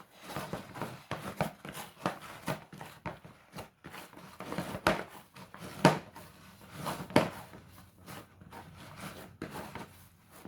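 Hands kneading a firm half-cake dough: irregular soft thumps and presses of the dough against the work surface, with two sharper knocks about six and seven seconds in.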